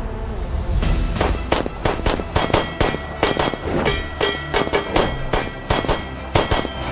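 Rapid pistol fire from a CANiK TTI Combat pistol, about three to four shots a second, starting about a second in and stopping just before the end, over background music.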